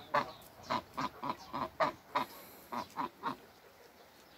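Toulouse geese honking: about a dozen short, rapid honks in an uneven run, stopping a little after three seconds in.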